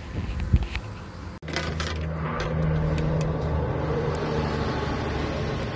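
A boat motor running steadily with a low hum. Before it, in the first second and a half, there are a few knocks, the loudest about half a second in.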